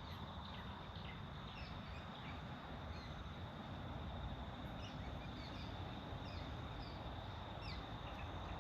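Riverside bush ambience: scattered short, downward bird chirps over a steady high insect drone, with a low steady background noise.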